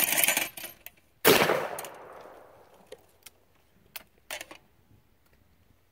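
One shot from a Baikal double-barrel 12-gauge shotgun a little over a second in, sharp and loud, with a tail that fades over about a second. A short loud noisy burst comes just before it at the start, and a few faint clicks follow a few seconds later.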